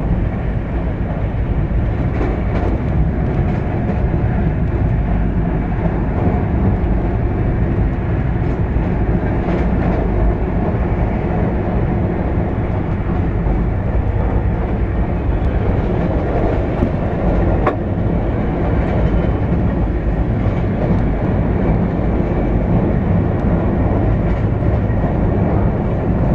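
Sealdah Duronto Express passenger coach running at speed, heard from inside: the steady running noise of wheels on rails. A single sharp click comes about two-thirds of the way through.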